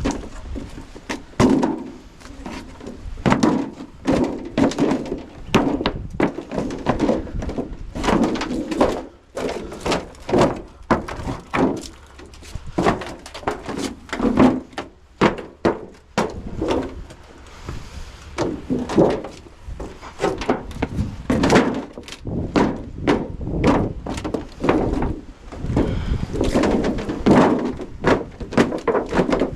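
Irregular knocks, thunks and clattering from hand-scrapping a fridge: stripped copper pipe being bent and folded up, with the metal and plastic parts knocking together.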